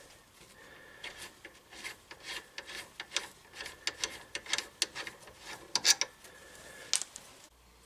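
Ratchet wrench clicking in short, irregular runs of strokes as the rear brake caliper's mounting bolts are worked loose.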